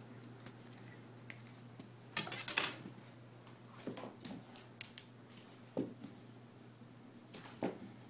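A cat scuffling and pouncing on a carpeted cat tree while it plays with a feather wand toy. A burst of scratchy clicks comes about two seconds in, then scattered sharp clicks and soft thumps.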